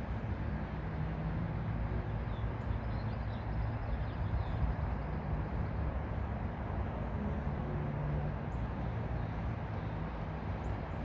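Outdoor ambience: a steady low rumble with a few faint bird chirps a couple of seconds in.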